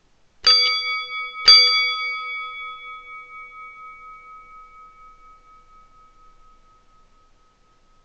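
Metal table bell struck twice, about a second apart, each strike ringing out in several clear tones that fade slowly. The lowest tones die first, and one mid-high tone lingers faintly to the end.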